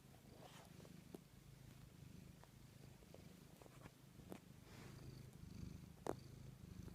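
Tabby cat purring faintly and steadily, with a few faint clicks.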